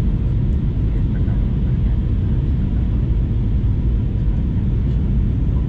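Steady low rumble of an Airbus A320neo's engines and airflow heard inside the passenger cabin during descent.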